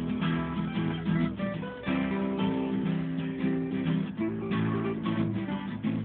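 Two acoustic guitars playing together: strummed chords with the pitches shifting every second or so.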